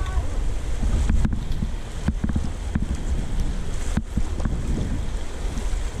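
Fast, silty river water rushing and splashing around an inflatable raft as the crew paddles forward, with heavy wind rumbling on the microphone. A few sharp knocks sound through it.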